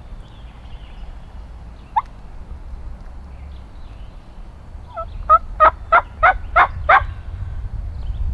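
Turkey yelping: a single short rising note, then about three seconds later a quick run of about seven loud yelps over two seconds, each note breaking from low to high.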